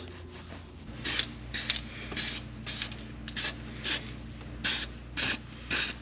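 Aerosol spray can sprayed in short hissing bursts, about two a second, starting about a second in, over a faint steady hum.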